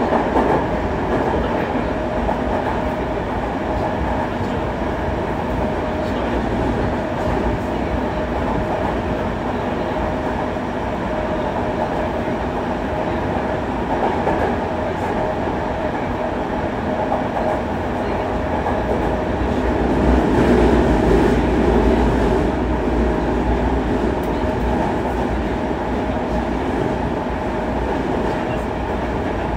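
Interior running noise of a Yokohama Municipal Subway 3000A-series train with Mitsubishi GTO-VVVF traction, heard inside the car between stations: a steady rumble of wheels on track with a constant tone above it. It gets louder for a couple of seconds about two-thirds of the way through.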